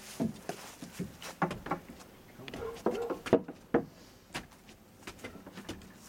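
Footsteps on wooden deck stairs as two people climb them: a string of uneven knocks, roughly one every half second.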